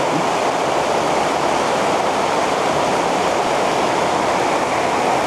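Steady rushing of a fast river flowing over a bed of many stones.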